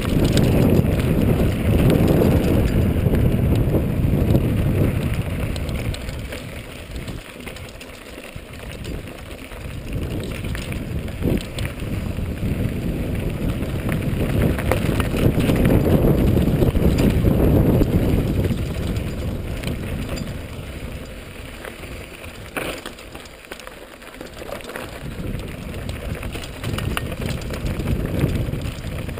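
Mountain bike rolling down a stony dirt track: heavy wind noise on the microphone along with tyre crunch and rattles of the bike over the stones. It swells and fades twice as the speed changes.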